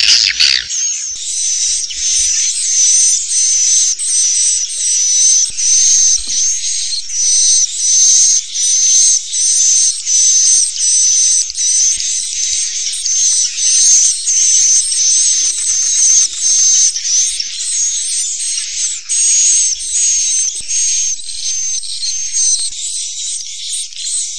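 Swiftlet calls: a continuous high-pitched chirping twitter that swells and fades in quick, evenly repeated pulses.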